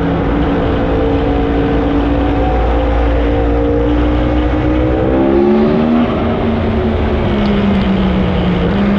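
Yamaha R1M's crossplane inline-four running through a decat Black Widow aftermarket exhaust, heard from on board in a tunnel. It holds a steady note, climbs in pitch under acceleration from about four seconds in, then drops sharply about six seconds in at an upshift and runs steady again.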